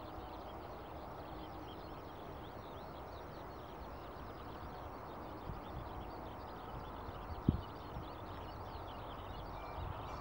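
Outdoor ambience: a steady low rumble with birds twittering constantly above it, and one short thump about seven and a half seconds in.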